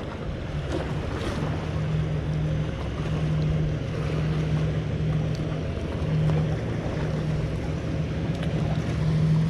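A steady low engine drone, most likely a boat motor, running under a wash of wind and water noise.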